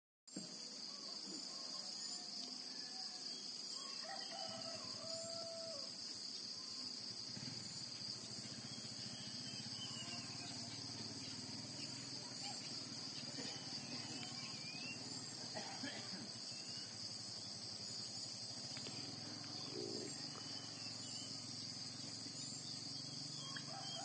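Steady high-pitched chirring of insects, two unbroken drones, with a few faint short bird calls scattered through.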